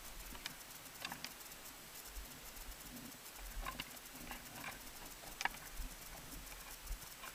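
Faint, irregular taps and scrapes of ice-climbing gear, crampons and ice tools striking and scraping ice and snow, with a sharper tap about five and a half seconds in.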